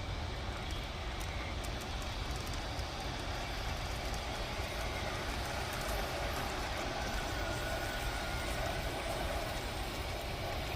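G-scale garden-railway model train running along its track: a steady rumble of wheels and motor, with a faint whine in the middle.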